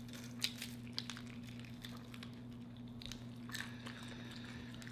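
Faint chewing and biting into crispy fried chicken, with a few sharp crunches about half a second and a second in, over a steady low hum.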